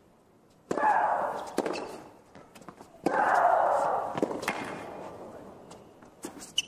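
A tennis point on a hard court: sharp racket strikes on the ball with a player's loud grunts, the first about a second in. A crowd then cheers and claps from about three seconds in, fading slowly as the point ends.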